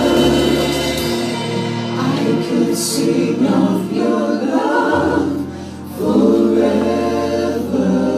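Gospel choir singing a worship song in full voice over a band, with held bass notes underneath; the voices ease off briefly just past the middle, then swell back in.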